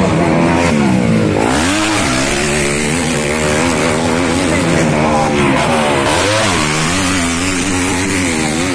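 Motocross dirt-bike engines racing. The pitch climbs and then drops several times as the bikes rev hard and shift through the gears.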